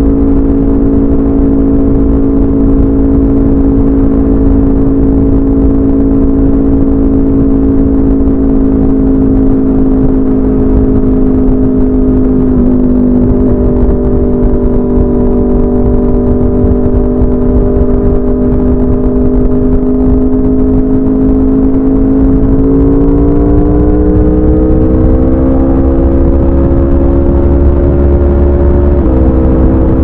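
2016 Aprilia RSV4 RF's V4 engine running loud through a de-catted SC Project CRT exhaust at highway cruise, its pitch sagging slowly, then climbing as the bike accelerates about two-thirds of the way in, with a sudden drop in pitch near the end. A low wind rumble runs underneath and grows during the acceleration.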